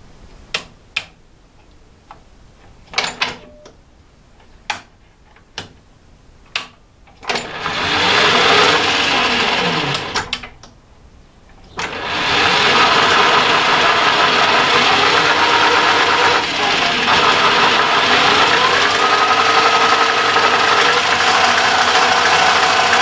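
EMCO metal lathe on a variable-frequency drive: sharp clicks as its control-panel switches are worked, then the motor and headstock run up and spin the chuck, run down briefly and start again, with a whine that rises in pitch near the end. The drive, swapped over from an ML7, is working the lathe normally.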